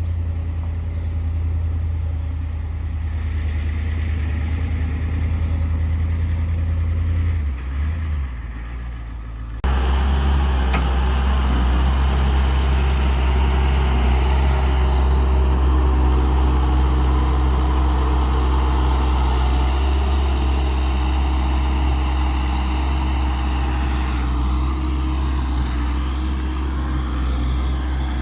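A heavy vehicle's engine running steadily with a deep, low hum. About ten seconds in it cuts suddenly to a louder, fuller engine sound that then holds steady.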